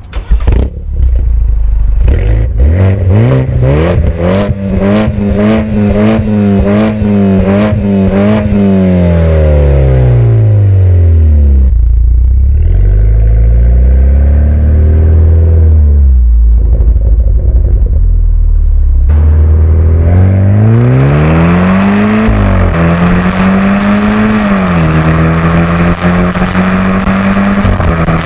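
BMW F10 520i's 2.0-litre turbocharged four-cylinder, with the catalytic converter removed, a downpipe and M Performance mufflers, heard from a microphone on the trunk lid. It starts up about half a second in and revs up, holds high for a few seconds and drops back to idle. Then it rises again in two pulls and holds a steady higher note near the end.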